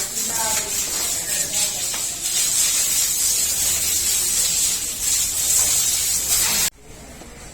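A loud, steady hiss like spraying, cutting off suddenly about a second before the end.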